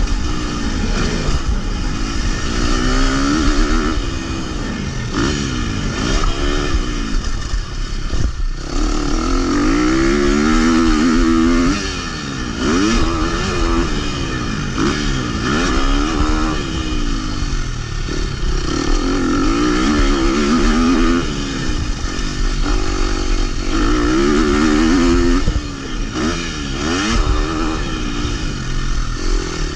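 KTM motocross bike engine, heard from on the bike, revving up and dropping back again and again as the throttle is opened and closed, with a brief sharp cut about eight and a half seconds in.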